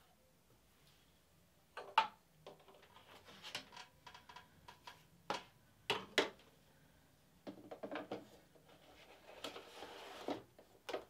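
Hard plastic clicks, knocks and scraping as a Bernina sewing machine's slide-on extension table is handled and slid into place around the free arm: a sharp click about two seconds in, more knocks near the middle, and rubbing as it slides on near the end.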